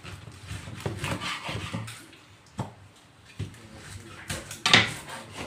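Kitchen knife chopping cutlass fish into pieces on a wooden cutting board: a few separate sharp knocks of the blade striking the board, the loudest near the end.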